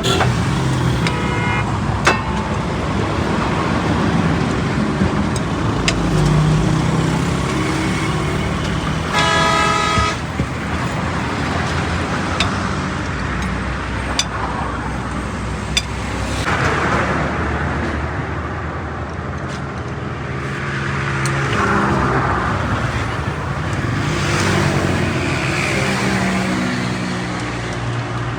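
Steady road traffic with vehicles passing, engines running and tyre noise swelling and fading. A vehicle horn sounds once for about a second, about nine seconds in, and there are a few sharp knocks.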